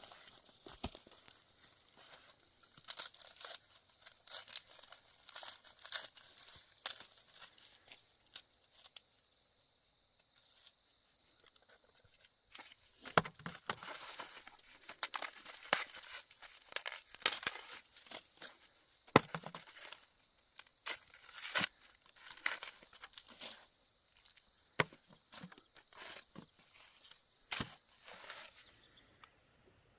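Dry plant leaves, such as corn husks, being torn and crumpled by hand in irregular short rips and crackling rustles. They are sparse at first and come thickest through the middle and second half.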